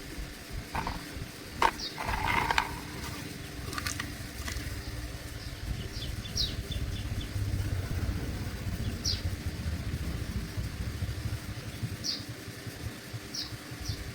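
Mechanical clicks and knocks in the first few seconds, then a low, uneven rumble with short high squeaks now and then.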